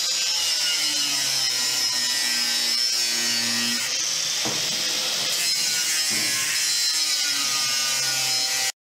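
A thin cutoff wheel (slicer) spinning on a grinder and cutting through thin sheet-metal downspout pipe: a loud, steady high grinding that stops suddenly near the end.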